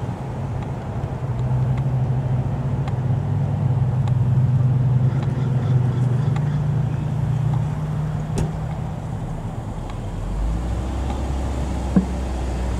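Engine of a police Dodge Durango SUV idling close by, a steady low hum that shifts lower about ten seconds in. A single sharp knock about eight seconds in.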